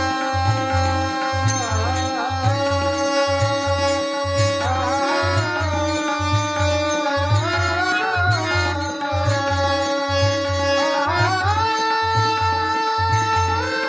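Marathi devotional bhajan music: a melody of long held notes that glide between pitches, over a steady, regular drum beat.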